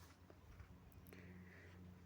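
Near silence: a faint steady low hum of room tone.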